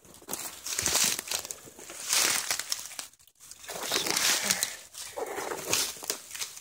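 Footsteps crunching and rustling through dry fallen leaves and brush, several loud steps about a second apart.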